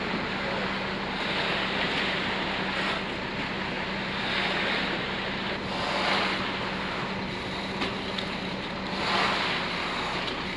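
Concrete being poured on a slab, a rushing wash that swells every couple of seconds, over the steady hum of a concrete truck's diesel engine running.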